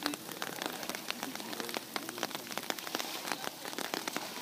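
A dense, irregular patter of many small sharp ticks, like raindrops falling close by.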